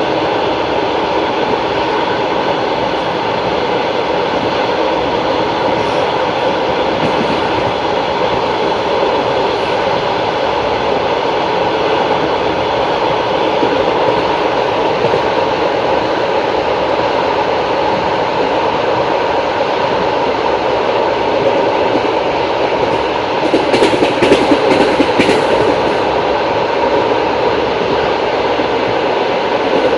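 Passenger train wheels rolling on the rails at speed, a steady rumble and hiss. A run of louder, sharper clacks comes about three quarters of the way through.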